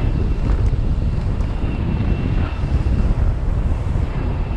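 Wind buffeting the microphone steadily while sailing a windfoil board at speed, with water rushing past underneath. A faint, steady high whistle runs beneath it.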